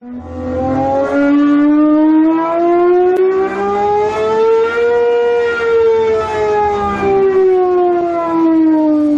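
Cosworth naturally aspirated V12 engine for the Gordon Murray T.50 running on a dynamometer. Its revs climb smoothly to a peak about five seconds in, then ease back down in one slow, even sweep.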